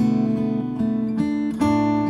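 Background music: acoustic guitar strummed chords, changing every half second or so.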